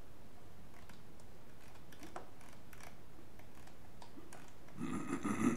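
Faint, scattered clicks of a computer mouse, a handful of them spread over several seconds, over a steady background hiss.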